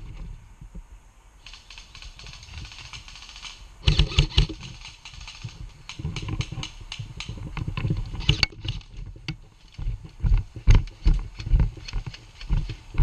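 Footsteps, low thuds about twice a second in the later part, with clicking and rustling of gear and clothing.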